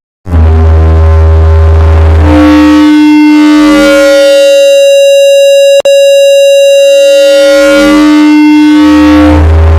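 Loud electronic sound effect of steady synthetic tones at several pitches, layered and switching in steps, with a deep hum underneath at the start and end. A sharp click comes about six seconds in.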